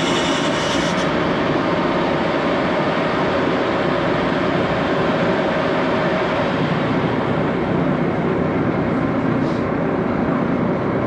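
Heavy Axelson lathe running steadily, its headstock gearing and spindle turning a large cylinder-boring fixture: a constant mechanical rumble with a faint hum.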